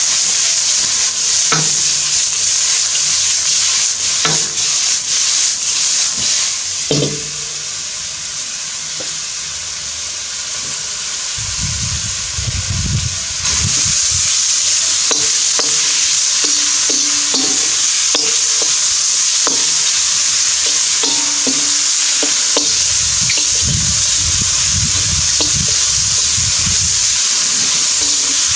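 Chicken stir fry sizzling hard in a hot round-bottom wok while a spatula stirs and scrapes it, with scattered clicks against the pan. The sizzle drops back for several seconds about a quarter of the way in, then comes back loud.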